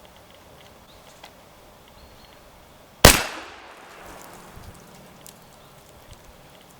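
A single shotgun shot about three seconds in, sharp and loud, its echo dying away over about a second.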